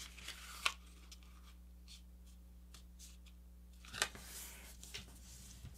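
A sheet of paper being folded and creased by hand, with faint rustling and a few sharper crinkles, the loudest about four seconds in.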